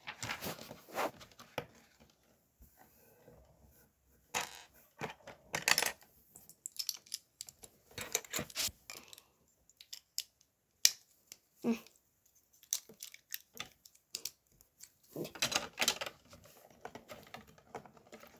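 Plastic Lego bricks being handled and pressed together: irregular sharp clicks and short rustling stretches, with a quiet gap about two to four seconds in.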